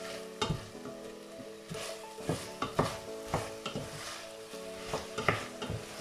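A wooden spoon stirring beef and onions in a stainless steel pot, knocking and scraping against the pot irregularly, over a quiet sizzle as the sauce cooks down and dries.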